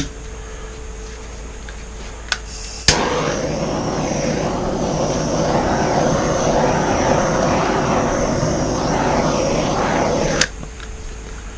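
Handheld torch: a click, then the flame lights with a sudden steady hiss that runs for about seven and a half seconds before cutting off sharply with a click.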